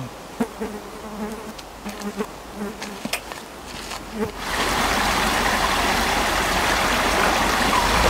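Flies buzzing in short passes, with a few light clicks. About four seconds in, a sudden switch to the steady rush of a small rocky forest stream.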